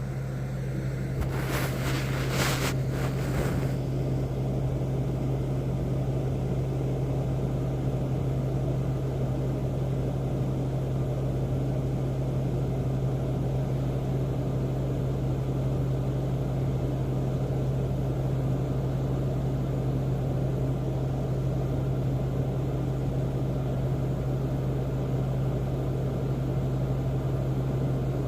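A steady, unchanging low mechanical drone, like a running motor or engine, with a few brief rushing noises about two seconds in.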